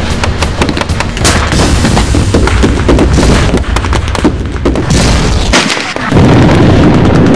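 Battle reenactment gunfire: a rapid, overlapping run of blank rifle shots and pyrotechnic bangs, with a denser rumble of firing setting in about six seconds in.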